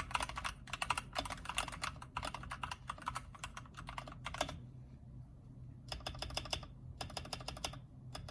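Typing on an LK67 mechanical keyboard with TTC Heart switches lubed with Krytox 205g0, an aluminium plate and pudding keycaps. A fast, dense run of keystrokes stops about four and a half seconds in, and after a pause of about a second and a half come shorter bursts of keystrokes. The owner finds the sound cheap despite the lubing.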